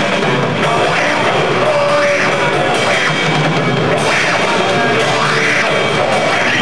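Rock band playing live and loud: a full drum kit keeping a steady beat under electric guitars.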